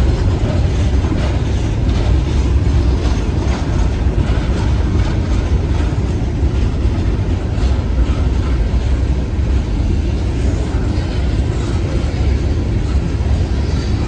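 A train passing, its cars rolling over the rails with a steady heavy rumble.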